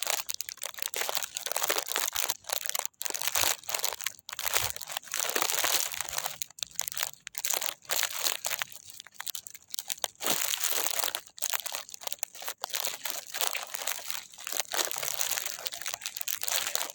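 Continuous rustling and crackling noise, dense with irregular sharp crackles, like something being crumpled or handled close to the microphone.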